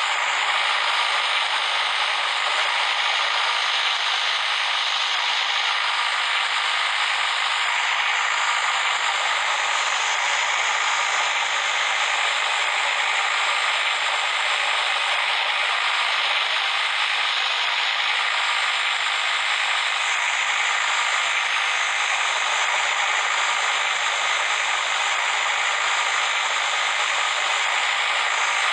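Road construction machinery running with a steady, dense mechanical clatter and rattle that does not change.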